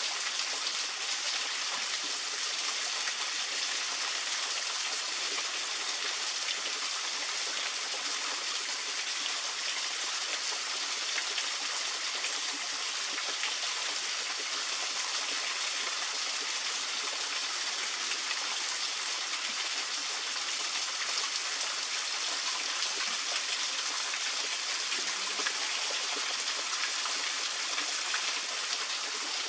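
Small waterfall spilling down a rock face, a steady hiss of splashing water.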